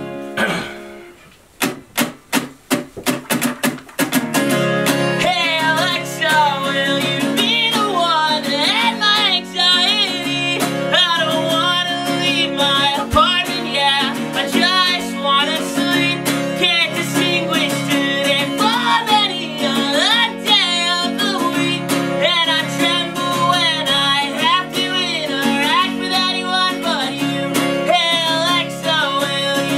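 A man singing with his own strummed acoustic guitar. The guitar opens with a run of short, separately struck chords, settles into steady strumming about four seconds in, and the voice comes in a couple of seconds later.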